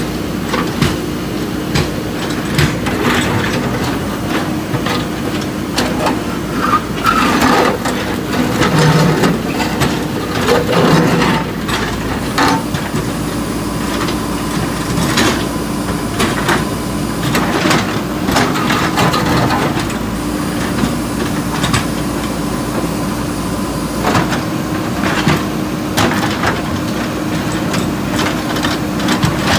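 JCB 3DX backhoe loader's diesel engine running steadily under working load, with repeated knocks, clanks and scrapes as it works the bridge debris.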